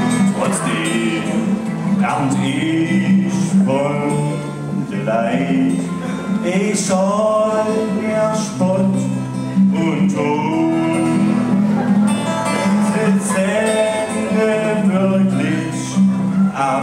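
A man singing a song in German dialect to an acoustic guitar accompaniment.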